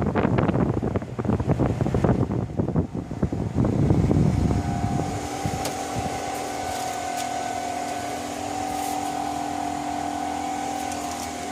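Heat pump running: a gusty rush of air buffets the microphone for the first four seconds or so, then gives way to a steady hum of fan and compressor with a constant tone.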